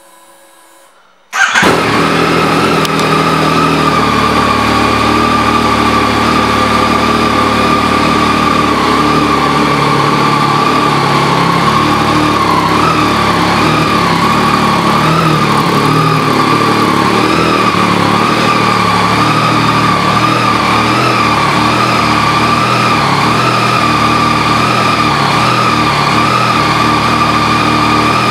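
2014 Yamaha FZ-09's 847 cc three-cylinder engine with an aftermarket M4 exhaust, starting about a second in, then idling steadily.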